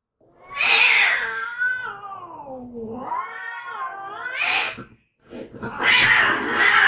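Domestic cats fighting. A harsh screech is followed by a long wavering yowl that sinks in pitch and rises again. After a brief pause come more harsh, spitting screeches.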